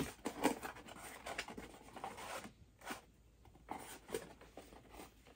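A small cardboard gift box being opened by hand: its flaps and card scraping and rustling in short, irregular strokes, with a quieter lull around the middle.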